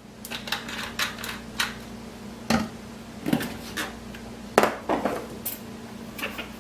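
Kitchen dishes and utensils being handled on a counter: a string of separate clicks and knocks, the loudest about two and a half and four and a half seconds in.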